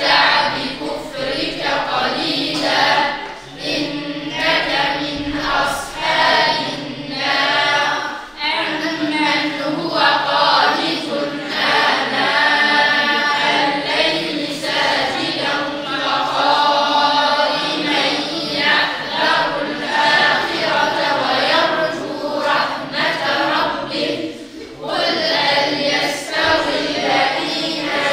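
A group of children and teenagers, girls' and boys' voices together, chanting in unison without instruments: a melodic group recitation, in long phrases with short breaks for breath.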